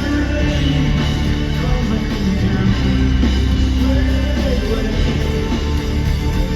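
Live rock band playing a song, with singing over a full band of bass, drums and guitar.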